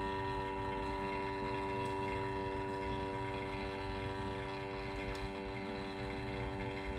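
Small vacuum pump motor of an LCD separator hot plate running with a steady, even hum, holding the phone by suction.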